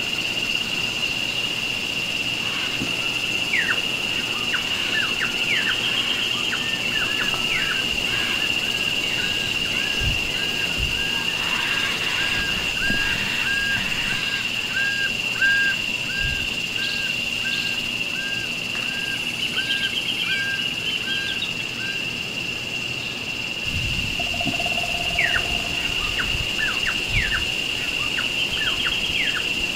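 Tropical forest ambience: a steady, high-pitched insect drone throughout, with birds calling over it. One bird repeats a short note about once a second through the middle, and quick downward-sweeping whistles come near the start and again near the end.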